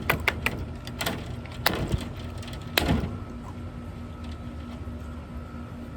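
A few sharp knocks and clatters, four or so in the first three seconds, from a pan of frozen ice holding silicone pop-it fidget toys being handled, with a steady low hum underneath.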